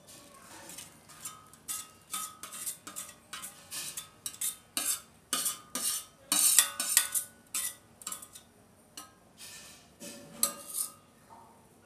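A spoon scraping and knocking against steel cookware, with repeated clinks that ring briefly, about two or three a second, as cooked vegetables are scraped out of a steel pan into a steel wok of sauce. It is busiest in the middle and thins out near the end.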